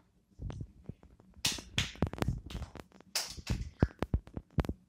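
Hands clapping fast in quick, irregular runs of sharp claps, used to call a cat to follow along.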